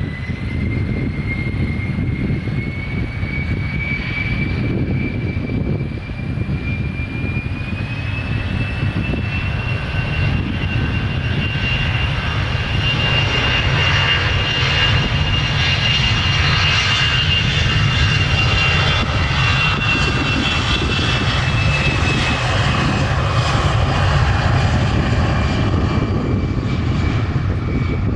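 Airliner engines running loud, with a deep rumble under a high whine that climbs slowly in pitch through the first half and eases slightly near the end.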